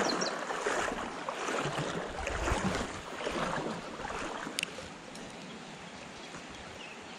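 Shallow creek water running, with irregular sloshing swells over the first few seconds that settle into a steady quieter rush; a single sharp click about four and a half seconds in.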